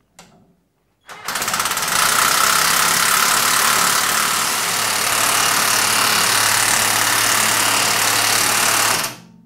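Handheld power tool running steadily for about eight seconds, driving the spring compressor's threaded spindle on a strut rig to take the tension off a shock absorber's coil spring. It starts about a second in and stops suddenly near the end.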